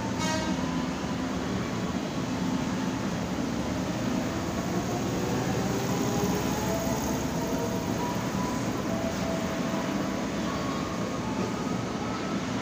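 Tokyu 8500 series electric commuter train rolling past, its motors whining in several tones that slowly rise in pitch as it gathers speed, over a steady rumble of wheels on the track.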